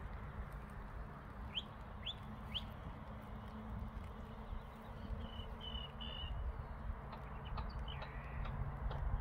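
Birds calling: three quick rising chirps about a second and a half in, then a few short high calls around the middle, over a steady low rumble.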